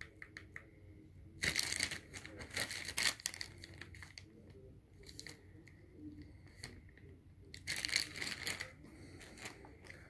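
Two bursts of rustling, one about a second and a half in and another near the end, with faint clicks in between over a low hum.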